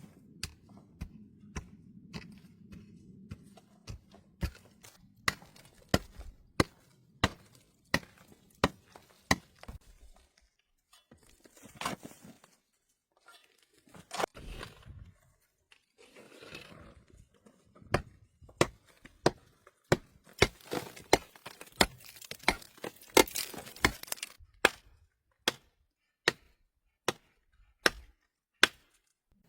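Wood being chopped with an axe or hatchet: a long run of sharp, separate strikes, about one or two a second. The strikes pause for a stretch of scraping and rustling near the middle, then come thicker in the second half.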